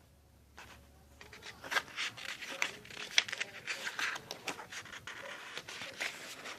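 Rustling and scraping handling noise: a dense run of short scratchy rubs and clicks starting about a second and a half in.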